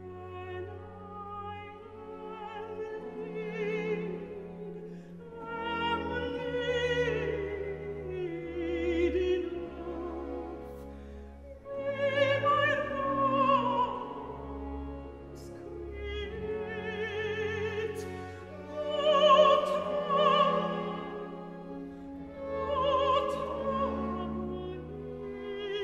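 Operatic singing with orchestral accompaniment: a voice with wide vibrato sings long, swelling phrases over sustained string notes.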